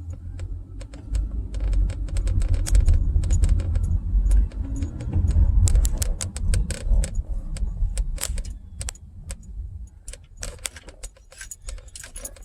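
Inside the cabin of a 2014 Honda Accord on the move: a low, uneven road and engine rumble, loudest in the first half, with rapid irregular metallic clicks and jingles like keys swinging and rattling.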